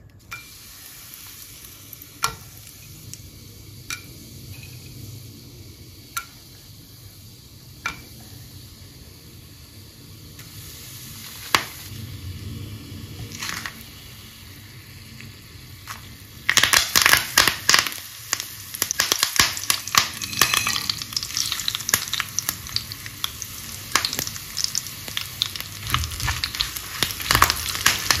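Whole spices frying in hot oil in a pan: a gentle sizzle with a few single clicks as pieces drop in. About two-thirds of the way through it turns to loud, dense crackling and spluttering as curry leaves and more spices hit the oil and are stirred with a spoon.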